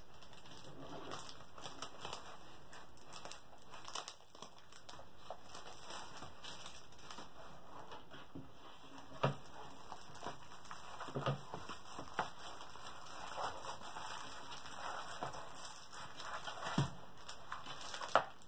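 A rolled diamond-painting canvas is unrolled and smoothed flat by hand, its stiff coated surface rustling and crinkling irregularly, with a few sharper snaps.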